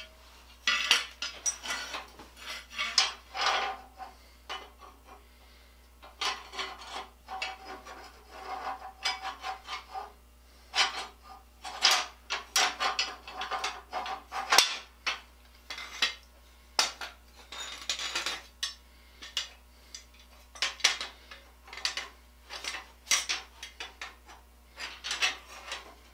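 Steel treadle bars, bolts and frame parts of a treadle grinder being handled and fitted together by hand: irregular metal clinks, rattles and scrapes, with a short metallic ring now and then.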